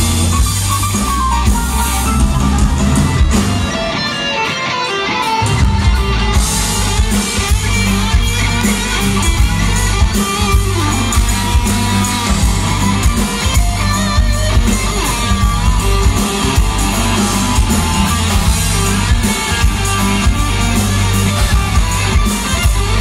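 Rock band playing live, electric guitar to the fore over bass, drums and keyboards. The bass and drums drop out for about two seconds, some three and a half seconds in, then the full band comes back in with cymbals.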